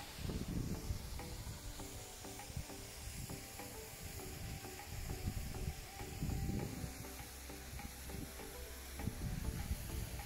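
Steady rushing hiss of a mountain waterfall, with irregular gusts of wind buffeting the microphone, strongest about half a second in and again about five to seven seconds in.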